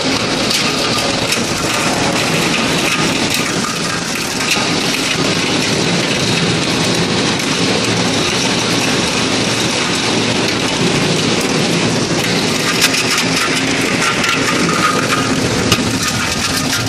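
Plastic recycling machinery running: a steady, dense clattering noise with many small rattles and clicks, like plastic being ground or tumbled.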